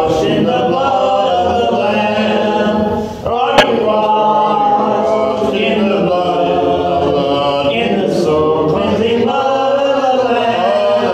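A hymn being sung, led by a man's voice singing in sustained phrases. There is one sharp click about three and a half seconds in.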